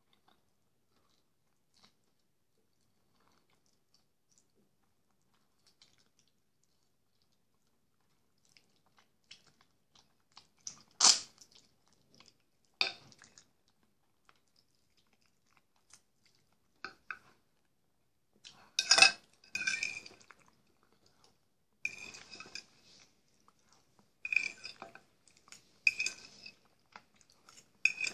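A person chewing mouthfuls of jellied meat (kholodets) close to the microphone, with a metal spoon clinking against a ceramic bowl several times in the second half, each clink ringing briefly. The first several seconds are nearly silent.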